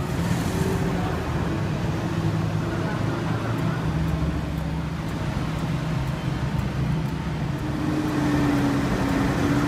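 Heavy truck engine running steadily with road traffic noise, a low continuous hum.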